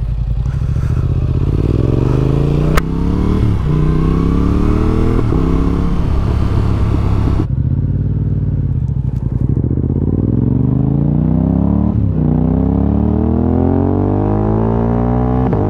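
Yamaha R7's 689 cc parallel-twin engine on its stock exhaust, accelerating hard and upshifting. The engine note climbs and drops at each shift, eases off and falls in pitch in the middle, then pulls up again near the end. There is one sharp click a few seconds in.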